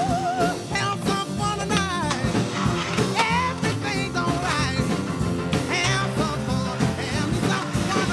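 Rock song on the soundtrack, a singing voice over drums and band.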